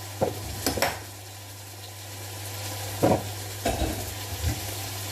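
Minced meat and onion sizzling in a frying pan, with a few short scrapes and knocks of a utensil stirring it, around the first second and again about three seconds in. A steady low hum runs underneath.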